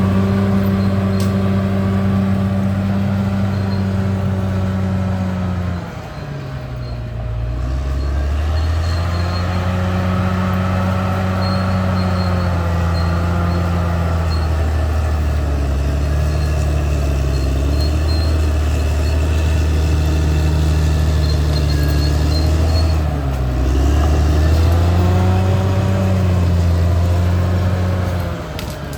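Caterpillar D6R XL bulldozer's diesel engine running steadily, its pitch and level sagging briefly and recovering about six seconds in, again about twenty-three seconds in, and near the end.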